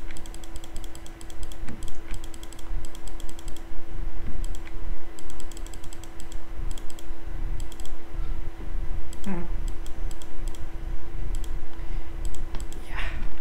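Rapid clicking at a computer: keys and buttons tapped in short bursts of several clicks a second, with pauses between the bursts, over a steady low hum.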